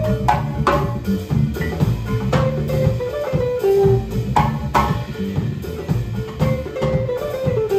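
Live band music: mallet-struck wooden bars, electric guitars, a drum kit and a djembe playing a steady groove. Sharp percussive strokes sound over sustained guitar notes.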